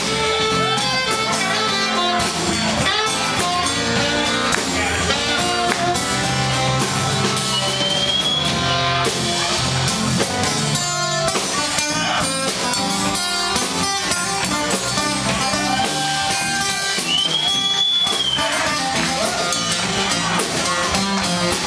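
Live band playing a song, with electric and acoustic guitars, saxophone and drum kit.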